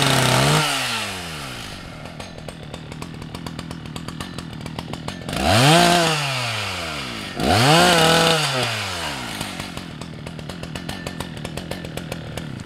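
Husqvarna 181SE two-stroke chainsaw revving in short bursts, at the start, about five and a half seconds in and again at seven and a half. Between the bursts it idles with an even rapid patter, and it cuts out near the end.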